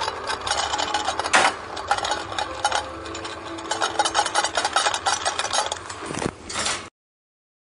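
A cockatoo's beak grinding and clicking against a metal wing-nut bolt on its cage's bowl holder: rapid, dense scraping clicks with one sharper knock about a second and a half in. The sound cuts off suddenly about a second before the end.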